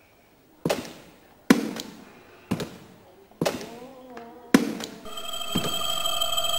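A run of sharp hits, one about every second, each with a short ringing tail. A steady ringing tone like a telephone ring joins about five seconds in.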